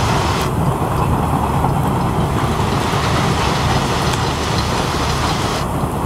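Freight train of tank cars and open wagons rolling past, a steady dense rumbling noise, with rain falling.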